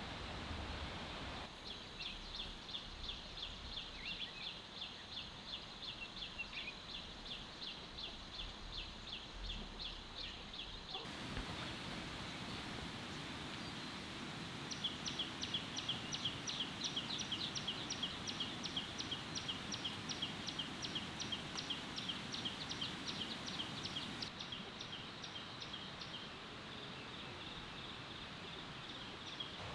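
Outdoor ambience: a steady hiss with a high, evenly repeated chirping call about four times a second, which stops about eleven seconds in and resumes a few seconds later.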